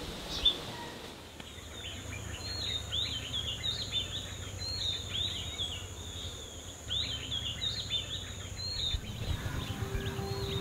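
Outdoor ambience of birds chirping, with many quick rising-and-falling calls in bursts, over a steady high-pitched insect drone and a low rumble. Music comes in near the end.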